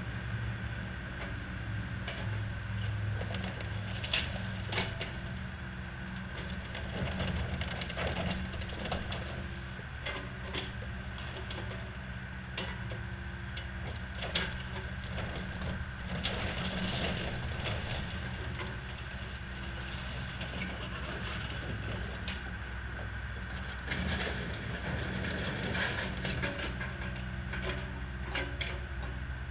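John Deere compact excavator's diesel engine running steadily while it tears down a mobile home, with repeated sharp cracks and crunches of splintering wood and debris throughout.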